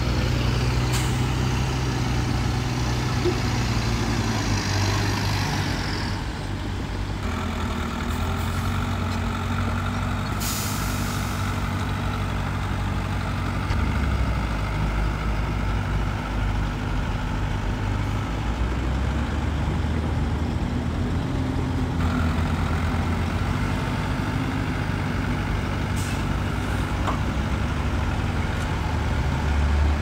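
Heavy diesel engine of earthmoving machinery running under load, its speed stepping up and down several times. A short, sharp hiss of air comes about ten seconds in.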